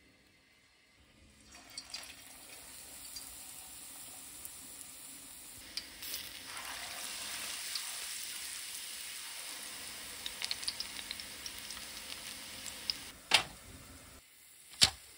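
Batter-coated mugwort sprigs deep-frying in hot oil in a wok: a steady sizzle with crackling pops that builds up after a quiet start. It is followed near the end by two sharp clicks.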